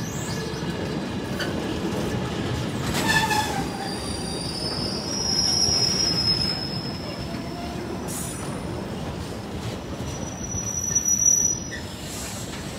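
A freight train of mostly empty container flat wagons rolling past at close range, with a steady rumble of wheels on rail. High-pitched metal squeals ring out, the longest a little before halfway and another shortly before the end.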